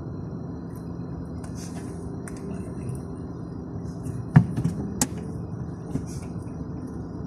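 Steady low rumble of idling traffic and engine heard from inside a car's cabin, with two sharp knocks about half a second apart a little past the middle, the first one loud.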